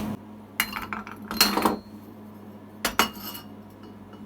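Metal workpieces clinking and knocking together as they are handled: a few sharp knocks with a brief metallic ring, over a steady low hum.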